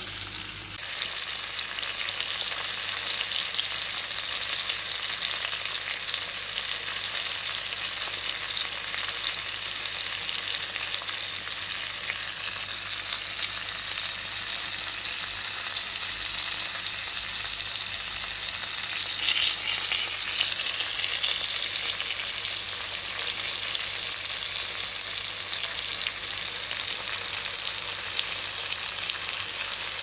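Whole floured fish frying in hot oil in a pan: a steady sizzle, with a brief burst of louder crackling about two-thirds of the way through.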